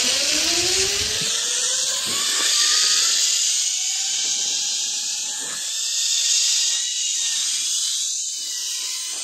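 Zip-line trolley running along a steel cable, its pulleys giving a whine that rises in pitch over the first second or so and then holds nearly steady, over a high hiss.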